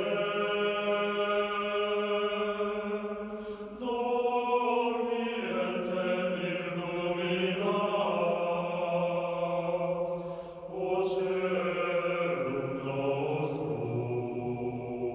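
Background music of slow, chant-like held notes, each sustained for a few seconds before shifting to the next.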